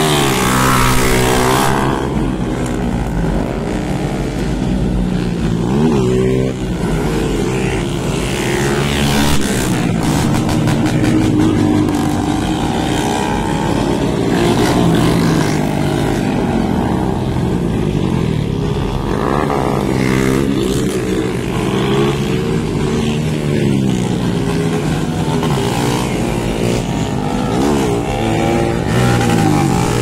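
Several motorcycles revving and passing close by while their riders pull wheelies, engine notes overlapping and rising and falling in pitch.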